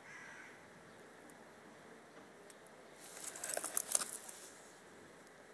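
Steel link bracelet of a vintage Seiko 5 watch clinking as it is handled: a short run of small metallic clicks and rattles starting about three seconds in and lasting about a second and a half.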